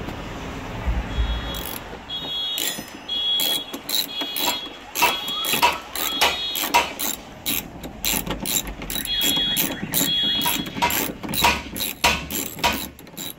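Ratchet wrench clicking in short runs as a bracket bolt holding the evaporator core is turned loose, with a few quick clicks a second and a light metallic ring on some of them.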